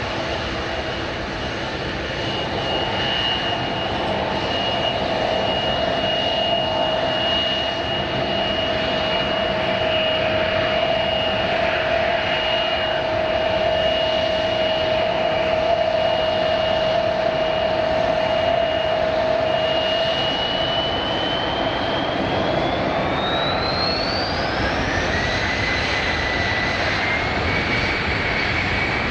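Jet airliner's turbofan engines running with a steady whine over a rushing noise, then spooling up about twenty seconds in, the whine rising sharply in pitch as thrust increases.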